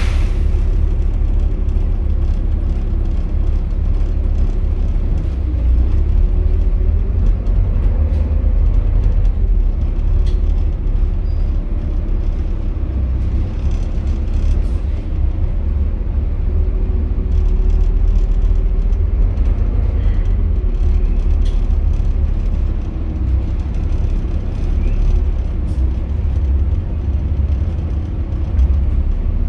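A Volvo B7TL double-decker bus heard from inside the saloon while on the move. Its six-cylinder diesel gives a steady low rumble with a faint whine that rises and falls, and there are a few brief rattles.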